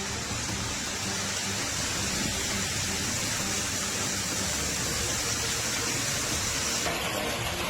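Heavy storm rain falling, a steady rushing noise that changes abruptly about seven seconds in.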